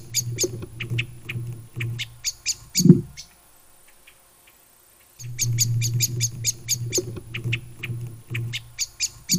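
Little owl giving rapid trains of sharp, scolding alarm calls, about six a second. A loud low thump comes about three seconds in, and the calls stop for about two seconds. They then resume, and another thump falls at the end.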